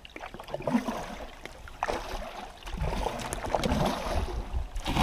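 Kayak paddle strokes dipping and splashing beside a solo canoe, with water trickling off the blades and small knocks; it grows louder from about halfway through.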